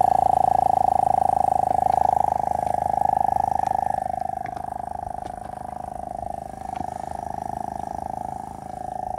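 Portable 12-volt tyre-inflator air compressor running, pumping up a car tyre through its coiled hose. Its steady, fast-pulsing hum gets somewhat quieter about four seconds in.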